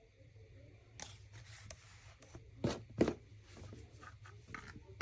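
Objects being handled: rustling and scraping, with two sharp clicks or knocks near the middle and another at the end.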